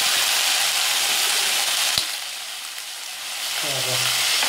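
Sliced onions and green onion leaves sizzling steadily in hot oil in a wok. There is a sharp knock about two seconds in, and the sizzle quietens for a moment before building back up.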